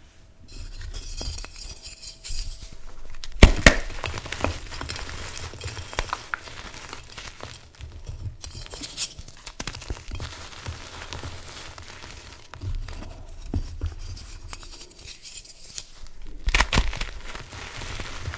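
Reformed gym chalk hearts crushed and crumbled by hand into loose chalk powder: dry crunching and crumbling, with sharp snaps as pieces break. The loudest snap comes a little over three seconds in, and another cluster comes near the end.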